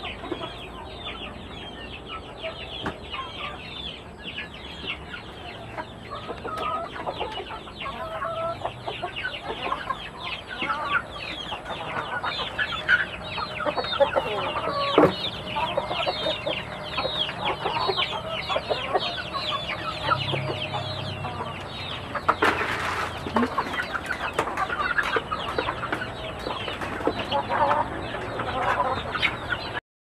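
Native chickens clucking and calling, with a dense run of short high calls throughout and a brief noisy rustle about three-quarters through.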